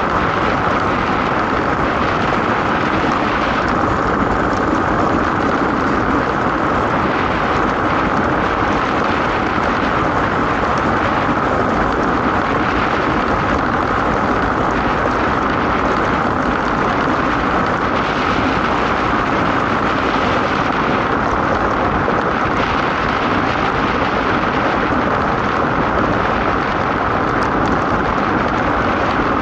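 DN iceboat sailing at speed: a steady, loud rushing noise of its steel runners on the ice and wind over the boat.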